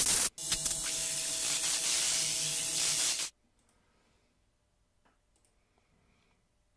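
Intro sound effect: a sharp burst, then about three seconds of steady hissing noise with a faint hum under it, cutting off abruptly, followed by near silence.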